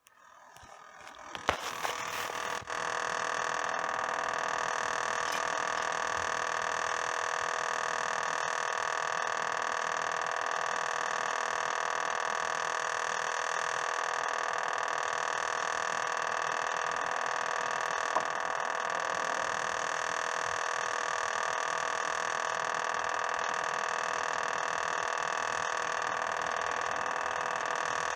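Samsung Zipel refrigerator's compressor running with a steady mechanical hum made of several whining tones, after a few clicks as it starts up. This is the abnormal compressor noise the owner wants to cure; an iced-up fan case was ruled out as the cause.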